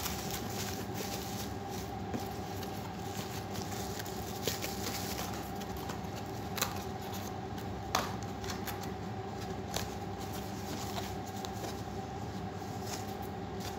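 Cardboard box being opened and handled: scattered light taps, clicks and scrapes of cardboard, the sharpest about eight seconds in, over a steady background hum.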